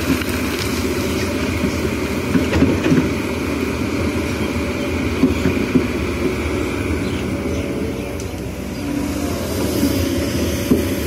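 Kobelco SK210HD tracked excavator working: its diesel engine runs steadily with a whine over it as the bucket is lifted and the boom swings, with a few short knocks.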